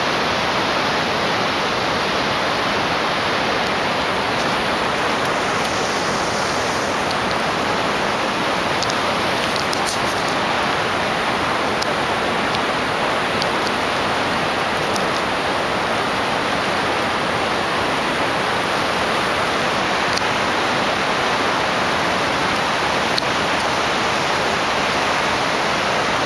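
Steady rush of high river water pouring over and around a temporary cofferdam, an unbroken wash of noise.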